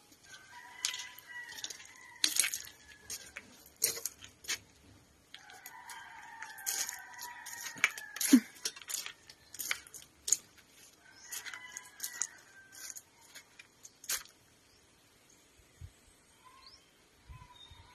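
A rooster crowing three times, each crow lasting about two seconds, with scattered sharp clicks and crunches around the crows.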